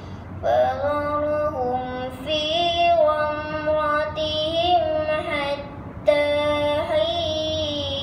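A young girl's voice reciting the Quran in tarannum, the melodic chanted style: long held notes with wavering ornaments. The phrase starts about half a second in, breaks off briefly near six seconds, and a new phrase follows.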